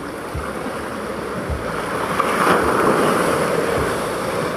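Sea surf breaking and washing up the beach, swelling to its loudest in the middle and easing off again, with low bumps of wind on the microphone.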